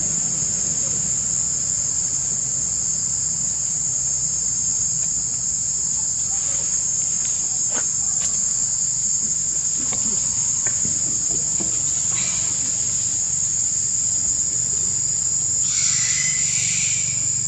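Steady high-pitched drone of a daytime insect chorus, unbroken throughout, with a few faint scuffs and a brief squeaky call near the end.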